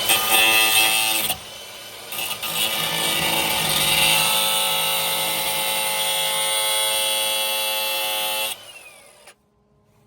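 Angle grinder running with a steady whine in two runs, a brief drop just after the first second, then a long run that stops about eight and a half seconds in, the motor winding down with a falling whine.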